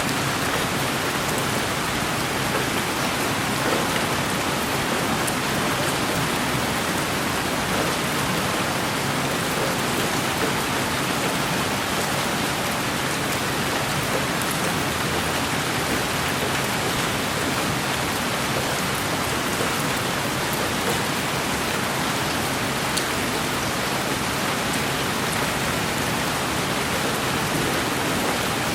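Steady rain falling, an even hiss with faint scattered drop patters.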